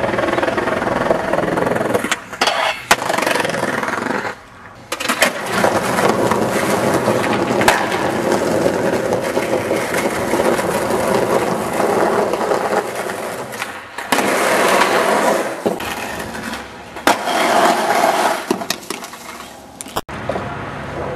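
Skateboard wheels rolling over concrete, broken by several sharp clacks of the board popping and landing, in a run of short cuts where the rolling noise starts and stops abruptly.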